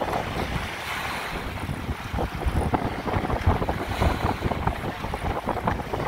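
Wind buffeting the microphone in uneven gusts, over small sea waves washing onto a sandy beach.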